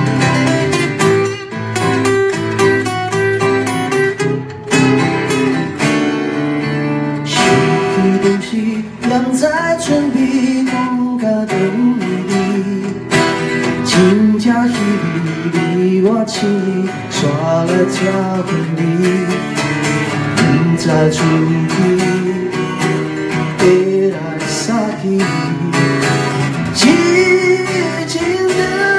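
Two acoustic guitars strummed and picked together in a live acoustic performance, with singing over the chords from about eight seconds in.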